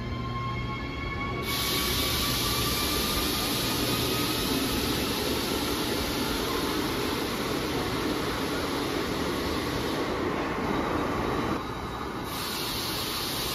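Electric Euskotren commuter train in an underground station: a thin whine rises slowly in pitch over the first few seconds, over a steady running rumble, with a hiss joining about a second in; the sound drops back somewhat near the end.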